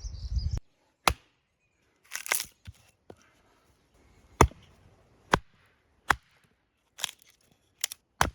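Axe chopping and splitting very dry firewood: about eight sharp, cracking strikes at uneven intervals, roughly one a second.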